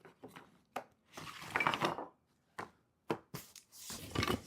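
Wooden beehive parts knocking and clicking together as they are handled and lifted out of a box, with a brief scraping rustle about a second in.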